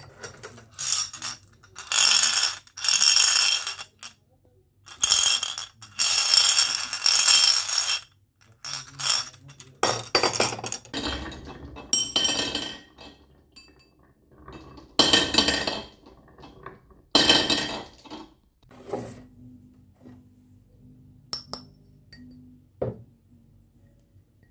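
Marbles rolling and clinking down a toy marble run, in a series of clattering runs a second or a few seconds long, with a few single clicks near the end.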